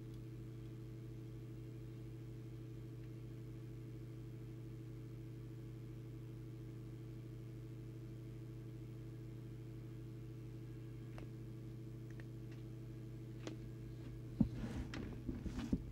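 Steady low electrical mains hum from bench electronics, with a few faint clicks and handling rustles near the end.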